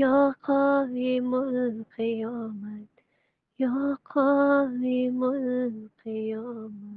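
A solo voice singing an unaccompanied devotional chant in short phrases of held, slightly wavering notes, with clean pauses between phrases.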